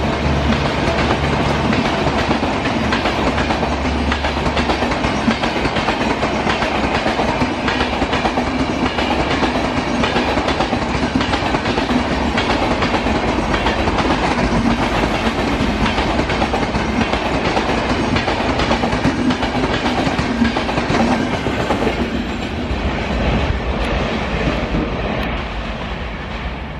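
Coaches of the Udaipur–Delhi Sarai Rohilla Humsafar Express passing at speed on a non-stop run: a steady rush of wheels on rails with fast clatter over the rail joints, tailing off in the last few seconds as the train draws away.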